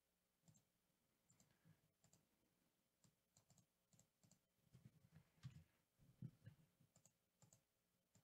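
Near silence with faint, scattered clicks of a computer mouse and keyboard, more frequent in the second half.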